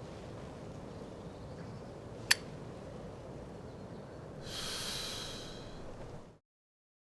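A soft, breathy exhale lasting about two seconds, over a low steady background hiss, with one sharp click a couple of seconds before it.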